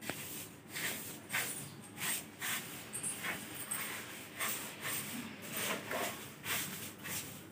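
Soft grass broom swishing across a tiled floor in quick, repeated sweeping strokes, about two a second.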